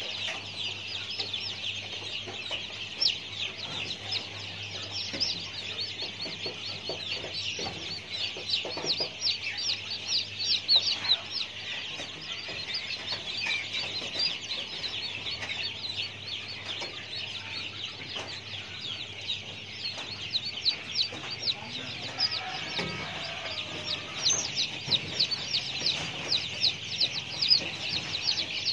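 Dense, rapid high-pitched chirping from many birds, each note a quick downward sweep, over a faint steady low hum.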